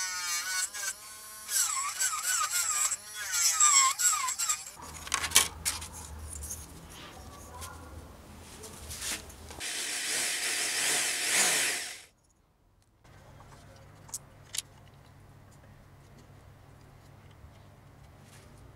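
Small electric drill with a fine bit whining as it bores through thin wood, its pitch wavering as the load changes and ending in a louder, noisier burst before it stops abruptly about two-thirds of the way through. Afterwards there is only quiet room tone with a couple of light clicks.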